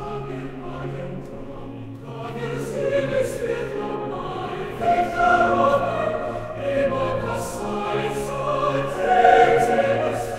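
Choral music: a choir singing with long held notes.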